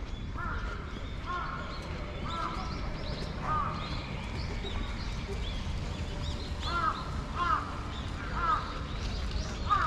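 Crow cawing repeatedly: a run of four caws, then after a pause four more, over a steady low background rumble.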